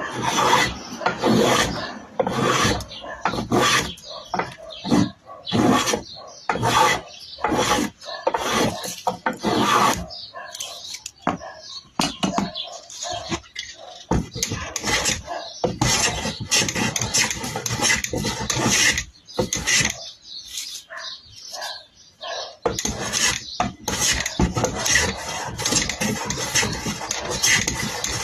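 Hand planes shaving wood in repeated strokes, the blades being tried for sharpness: short quick strokes at first, then longer, unbroken passes later on.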